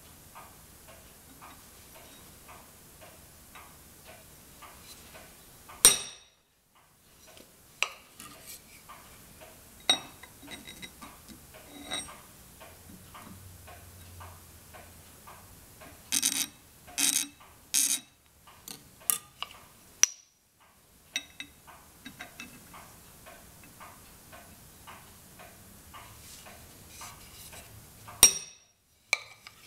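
Sharp taps of a hammer on a center punch, marking hole centres on a metal flange. The taps are scattered singly, with a quick run of four past the middle and the loudest one near the end. Under them runs a steady soft ticking, about two or three ticks a second.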